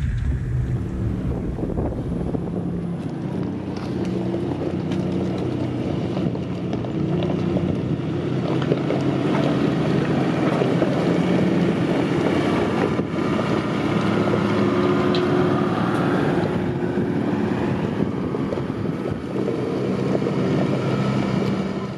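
Off-road vehicle engine running steadily while driving, its pitch rising and falling slightly, under loud wind noise buffeting the microphone.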